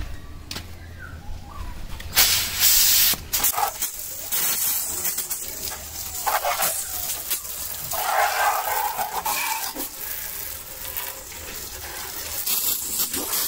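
Jet of water from a handheld hose spray gun hissing and splashing against a motorcycle, coming in uneven surges, loudest about two seconds in.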